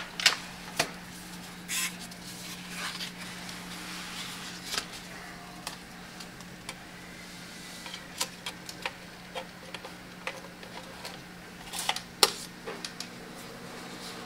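Irregular sharp clicks and knocks of hard objects being handled, about a dozen spread through, the loudest cluster near the end, over a steady low hum.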